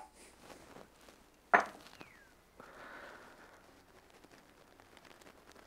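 Quiet handling of hand tools at a broken bolt while an easy out is taken back out: one sharp click about one and a half seconds in with a brief falling squeak after it, then a soft hiss, likely a breath, for about a second.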